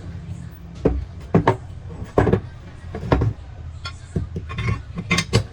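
A run of irregular sharp knocks and clatters, about ten hits, several in quick pairs, over a low steady hum.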